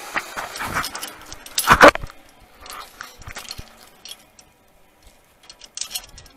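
Zipline harness gear being handled: light metallic clinks of carabiners and the trolley, with rustling and one loud bump about two seconds in.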